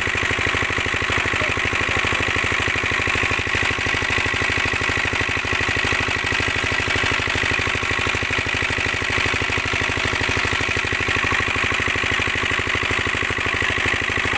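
Diesel shallow-tube-well pump engine (shallow machine) running steadily with an even firing beat. Water gushes from the pump outlet into the bathing tank.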